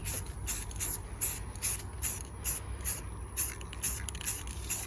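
Aerosol can of bumper and trim paint spraying in short, quick hissing bursts, about two or three a second, as a super-light first coat is dusted on.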